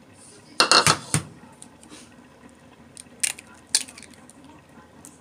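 A raw egg knocked against the rim of a bowl to crack it open: a quick cluster of sharp taps a little over half a second in, then two lighter clicks around three seconds in.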